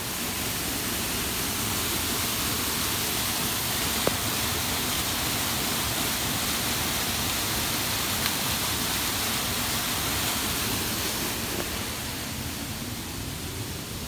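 Waterfall pouring in a steady rush of falling water, a little quieter near the end.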